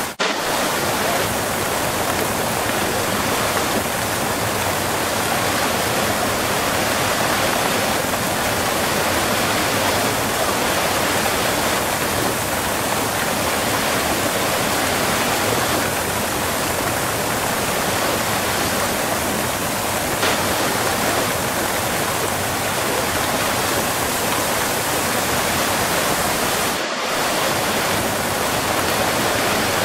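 Waterfall recorded close up: a steady, full rush of falling water, with a brief dip in level about 27 seconds in.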